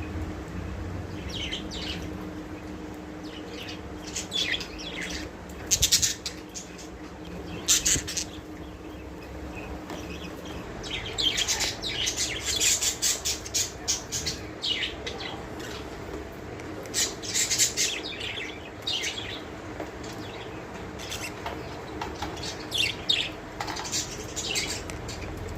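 Budgerigars chirping in scattered bursts of quick, high chirps and chatter, with short pauses between.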